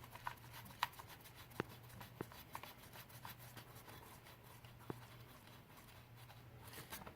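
Faint, irregular small clicks and ticks of a new PCV valve being threaded into the valve cover by hand, over a faint steady low hum.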